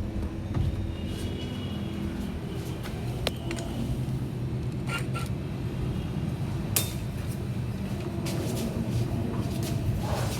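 A few light metallic clicks and taps from hand tools loosening the pulley bolt on a washing machine's gearbox, over a steady low hum.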